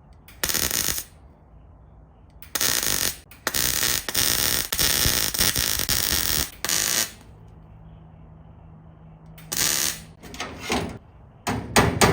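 MIG welder laying tack and stitch welds on sheet-steel wheel-arch panel: a short burst, a longer run of several seconds, then a quick series of short bursts near the end, with a low machine hum between them.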